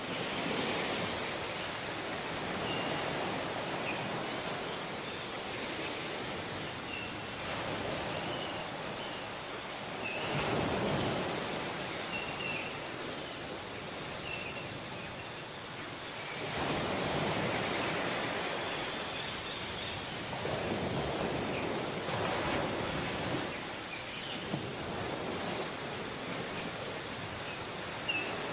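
Rushing water, a steady noisy wash that swells louder and eases off every few seconds.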